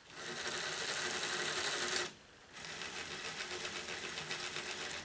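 Two small DC motors driving a Lego tank's plastic gears and tracks, whirring in two runs of about two seconds each with a half-second stop between, the tracks turning in opposite directions.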